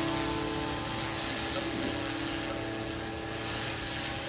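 Pulsed laser cleaner ablating soot from carved stone: a steady hiss that swells twice.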